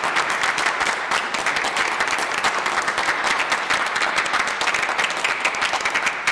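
Steady applause: a group of people clapping their hands, a dense run of many overlapping claps.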